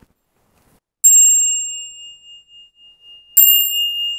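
Buddhist bowl bell (kin) struck twice, about two seconds apart. Each strike rings on in a clear high tone, and the bell signals the start of a sutra chant.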